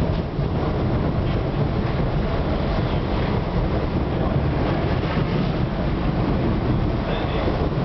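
PATCO Speedline train running: a steady rumble of wheels on the rails, with no clear breaks or clacks.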